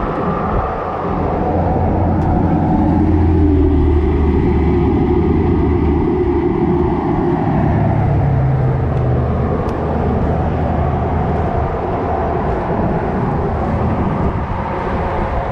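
Road traffic rumble that swells a few seconds in as a vehicle passes, its tone dropping, then eases off.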